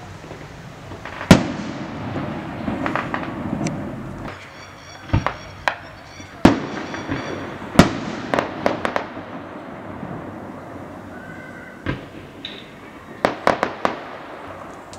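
A fireworks display's aerial shells bursting: a run of sharp bangs over a rumbling background. The loudest bang comes about a second in, with clusters of bangs in the middle and again near the end.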